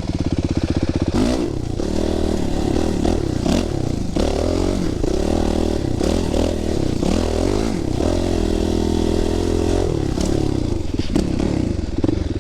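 250 dirt bike engine revving up and down while riding a trail, its pitch rising and falling with the throttle and gear changes, with a few knocks and clatters over bumps.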